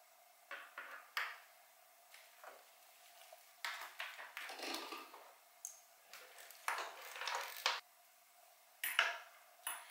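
Hands and tools working a motorcycle airbox loose: scattered clicks, knocks and scraping of plastic and metal parts, with a faint steady hum underneath.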